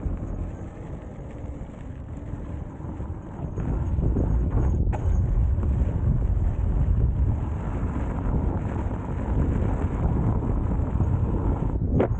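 Wind buffeting the microphone in a steady low rumble, with tyre noise from an electric unicycle rolling over a dirt trail. Two brief, sharper noises come about five seconds in and near the end.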